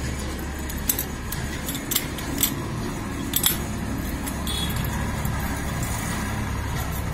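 Light metallic clinks of small steel parts and a tool knocking against a Mahindra Bolero 4x4 gearbox during assembly: a few sharp taps in the first three and a half seconds, over a steady low hum.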